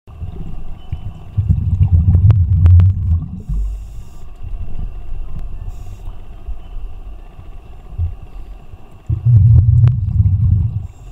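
Scuba breathing through a regulator, heard underwater: two long, low bursts of exhaled bubbles about eight seconds apart, with two short hisses of inhalation between them.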